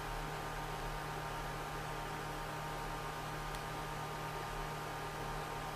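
Steady electrical hum with a constant hiss.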